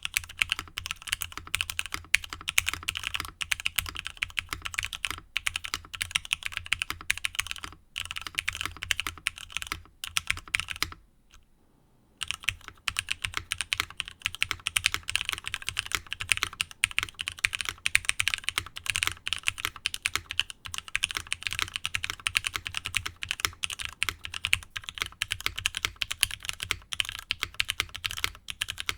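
Steady, fast typing on a mechanical keyboard with lubed Cherry MX Black Hyperglide linear switches in a nylon full plate, first with GMK MTNU-profile keycaps. About eleven seconds in the typing stops for about a second and then resumes with SP DSS-profile keycaps.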